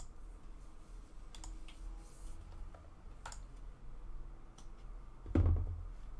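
Scattered light clicks and taps of plastic model-kit parts being handled and snapped together, with one louder thump about five seconds in.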